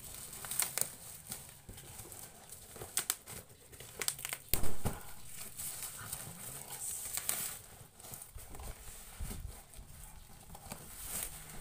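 Parcel packaging being handled and opened: crinkling and tearing with scattered clicks and knocks, and one loud thump about four and a half seconds in.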